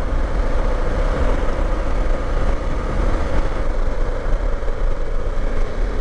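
BMW F750GS parallel-twin engine running at road speed under heavy wind rush on the microphone. The bike is slowing and changing down from sixth to fourth without the clutch, using the gear shift assist.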